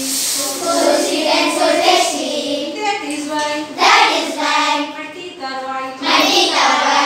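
A group of children singing a classroom rhyme together, with hand clapping.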